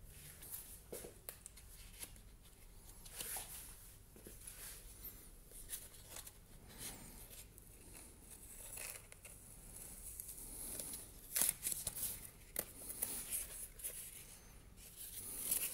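Irregular rustling, scraping and peeling noises as hands flex a women's jute-wrapped wedge sandal and pull its loose sole layer away from the wedge. A few sharper snaps stand out in the second half.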